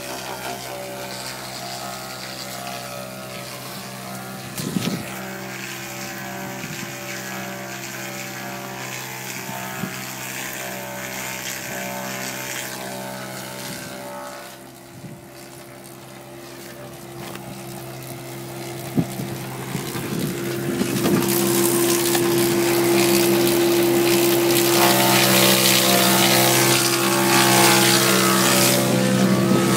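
Log lathe machinery running with a steady mechanical drone and a few sharp knocks. About two-thirds of the way through it grows louder and a strong steady whine joins in.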